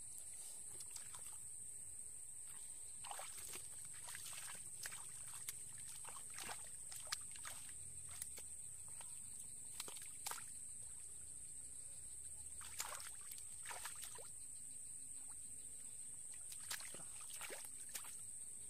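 Irregular soft splashes and sloshes of shallow muddy water as fish are grabbed by hand, over a steady high-pitched hiss.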